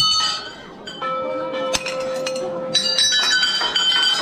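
Temple bells struck over and over by devotees, overlapping. Each strike rings on with a clear metallic tone, about six strikes in all, several close together near the end.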